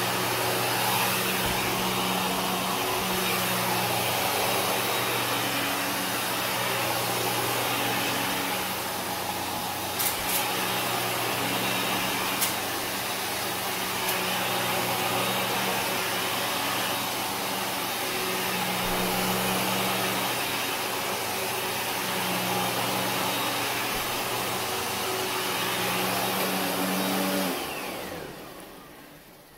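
Kenmore upright vacuum cleaner running as it is pushed back and forth over carpet, its motor hum swelling and easing with each stroke, with two sharp clicks midway. Near the end it is switched off and winds down.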